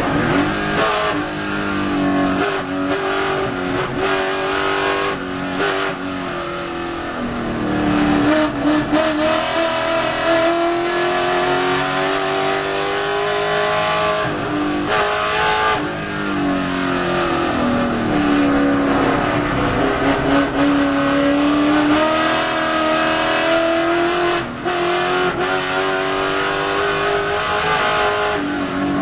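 Rover SD1 racing saloon's V8 engine under hard racing, its revs climbing through the gears and dropping sharply under braking and downshifts several times, then pulling up again.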